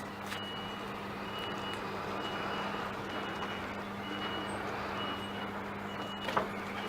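A vehicle's reversing alarm beeping at one steady pitch, a little more than once a second, over a steady low hum. A sharp click comes about six seconds in.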